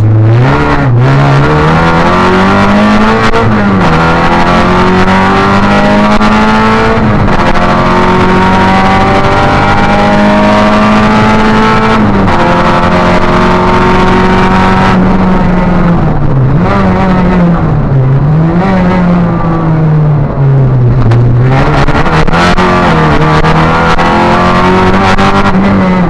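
Opel Astra rally car's engine heard from inside the cabin, driven hard on a special stage: loud, its pitch climbing under acceleration and dropping back at each lift-off and gear change, many times over.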